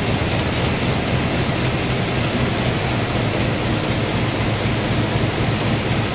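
PinLong PL-GPFG-1224 inline flexo printer slotter die cutter running at production speed, about 240 corrugated sheets a minute: a steady, dense mechanical noise.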